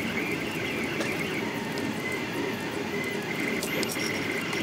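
Delta Rostock 3D printer running a high-speed print: a dense, rapidly fluttering buzz of its stepper motors and moving arms as the effector darts about, with a steady high whine over it.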